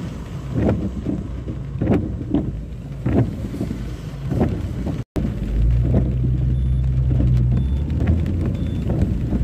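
Car interior in heavy rain: rain and road rumble with irregular small knocks while the car waits in traffic. After a brief break just past halfway, the car's engine pulls away with a steady low drone, and three faint short pips sound about a second apart.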